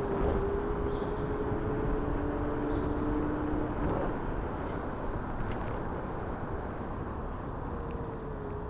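Steady rush of wind and road noise while riding an electric scooter. A faint steady whine fades out about four seconds in and comes back near the end, falling slightly in pitch.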